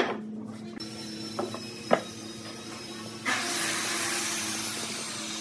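Pine blocks knocked down on a wooden workbench a few times, with a low steady hum underneath. A little over three seconds in, a loud, steady hiss starts and keeps going.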